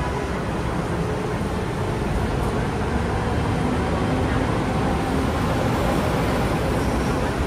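Parking-lot tram running along the road, heard from on board: a steady rumble of engine and road noise that holds even throughout.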